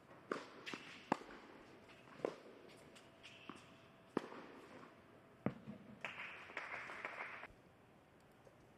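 A tennis rally on an indoor hard court: the ball is struck back and forth with rackets, sharp pocks about a second apart. It ends after about six seconds with a second and a half of light applause.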